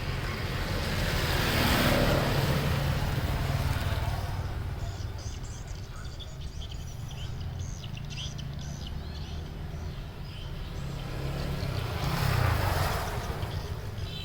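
A motor vehicle's engine rumbling steadily, with two louder swells of noise, about two seconds in and again near the end.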